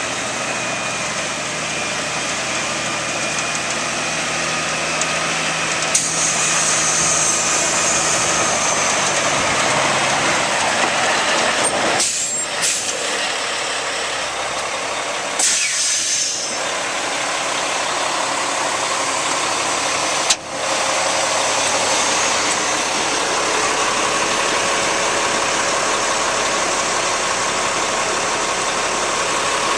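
Cat C-10 inline-six diesel engine of a Kenworth T800 mixer truck running steadily, with a few brief sharp noises in the middle.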